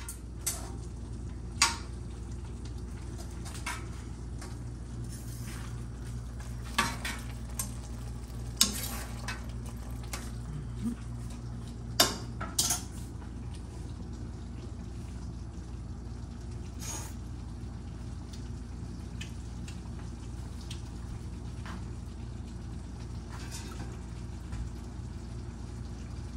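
A utensil stirring pasta and fish in a stainless steel sauté pan, with sharp clinks against the pan every few seconds, the loudest about twelve seconds in. A steady low hum and a soft sizzle run underneath.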